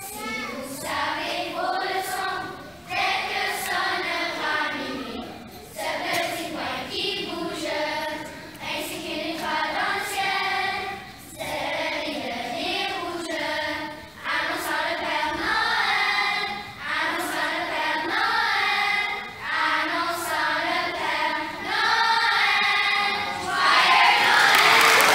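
Children's choir singing together, in sung phrases with short breaks between them. Applause breaks out right at the end as the song finishes.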